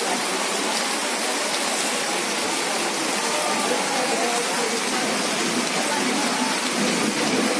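Rain falling steadily, a constant hiss, with faint voices of people talking in the background.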